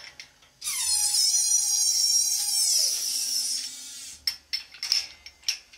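High-pitched metal-on-metal squeal as a ball bearing is pressed onto a Borg-Warner T-10 four-speed mainshaft in a shop press. The squeal lasts about three seconds and drops in pitch near its end. A few sharp clicks follow.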